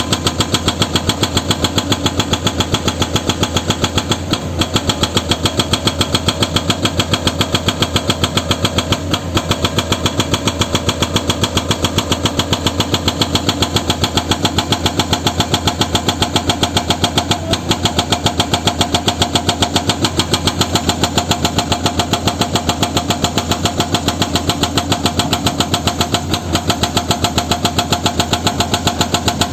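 Excavator's diesel engine running steadily, with an even, unchanging pulse.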